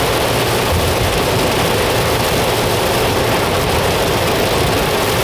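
Steady noise of heavy rain on a camper van with the low rumble of its engine running.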